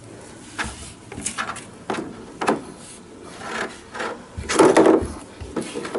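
Hard plastic clacking and scraping as a toddler's hand works the doors and shape pieces of a plastic playpen activity panel: a string of short knocks, about seven, with a longer, louder clatter after about four and a half seconds.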